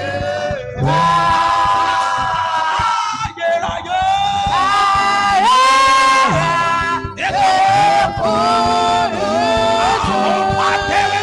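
Church worship singing: voices holding long notes that slide from one pitch to the next.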